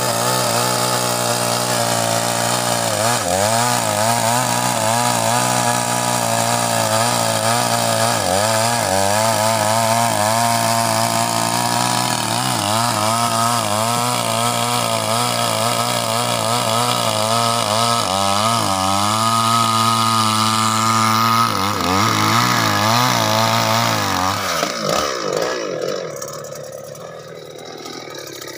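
Two-stroke chainsaw running at high revs as it cuts through a log, its engine note wavering with the load. About 25 seconds in the revs fall away and the saw drops to idle as the cut ends.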